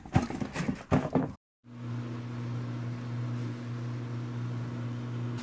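A few sharp knocks and handling sounds, then after a brief cut-out a steady low electric hum of a motor-driven appliance.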